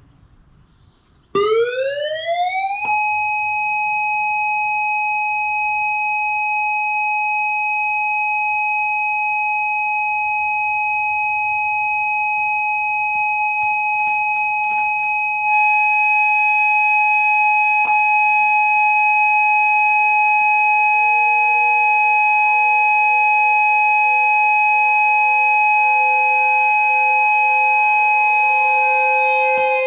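Simulated Ion Pathfinder electronic siren played through a speaker, sounding the alert signal: it sweeps up quickly and holds one steady, buzzy tone, turned up a little louder about halfway through. From about 18 s a second siren with a lower pitch slowly winds up and settles into its own steady tone beneath it.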